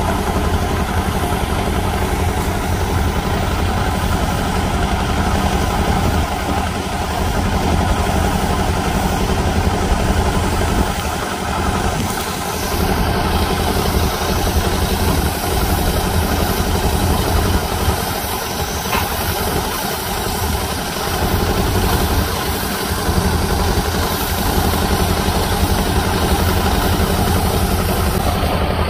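Heavy tractor truck engine running steadily, a constant drone with no breaks.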